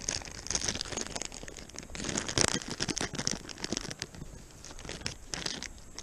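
Thin plastic bag crinkling and rustling in irregular bursts as it is handled and pulled open, loudest about two seconds in.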